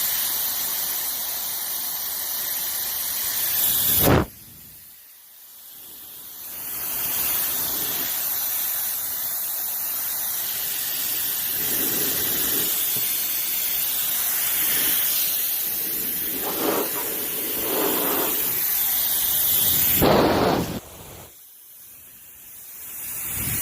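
YAPOY high-speed ionic hair dryer blowing, a steady rushing hiss of air. It cuts out about four seconds in and builds back up over a couple of seconds, runs steadily, then drops again near the end and starts to rise once more.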